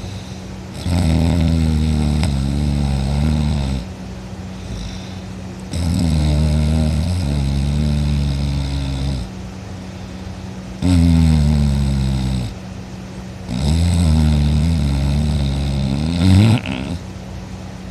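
A sleeping person snoring loudly: four long, rattling snores a few seconds apart.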